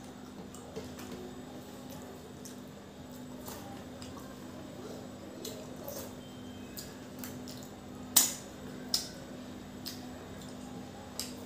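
Close-up eating sounds of a man eating by hand from a metal plate: fingers scraping the plate, wet mouth smacks and finger licking, with scattered small clicks, two sharper ones near the end. A steady low hum runs underneath.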